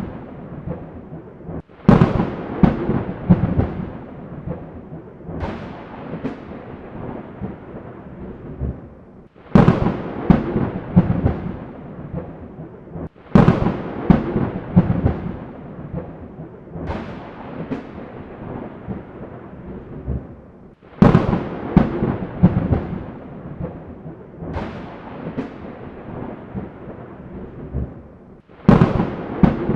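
Thunderclaps again and again, about eight in all, a new sharp crack roughly every four seconds, each rolling off into a low rumble that fades before the next.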